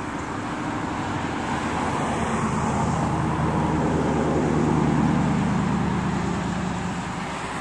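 A car passing on the road: engine hum and tyre noise build to a peak about five seconds in, then fade.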